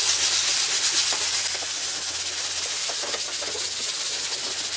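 80-grit sandpaper wrapped around a small block, rubbed by hand over the plastic screen of an LCD monitor in fast back-and-forth sanding strokes: a steady scratchy hiss with a quick stroke rhythm.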